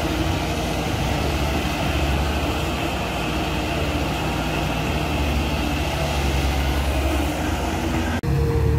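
Caterpillar 320B excavator's diesel engine running steadily under working load as the machine swings a bucket of mud to the dump truck and back. About eight seconds in the sound cuts off abruptly and a different engine sound begins.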